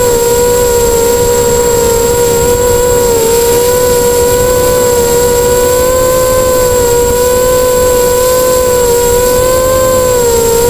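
Eachine 250 racing quadcopter's brushless motors and propellers whining steadily, heard up close from the onboard camera, the pitch dipping and rising a little with the throttle. A rushing wind noise sits underneath.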